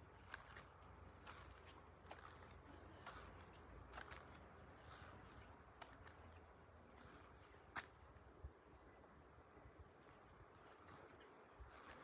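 Faint footsteps of a person walking, a soft step every second or so with one firmer step near the end, over a steady high-pitched insect chorus.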